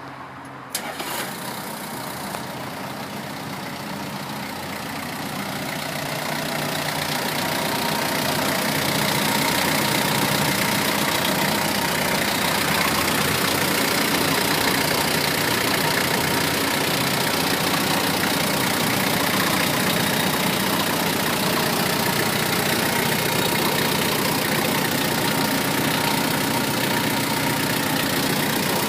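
Toyota 8FDJF35 forklift's 3Z diesel engine starting with a sudden catch about a second in, then running steadily, growing louder over the next several seconds before settling into an even idle.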